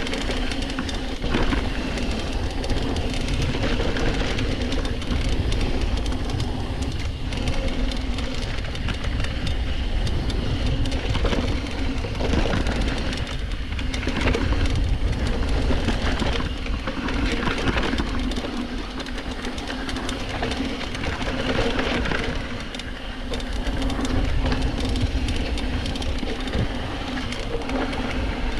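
Mountain bike descending a downhill trail at speed: wind buffeting the mounted action camera in a heavy, continuous rumble, with tires running over dirt and rocks and the bike rattling and clattering over bumps.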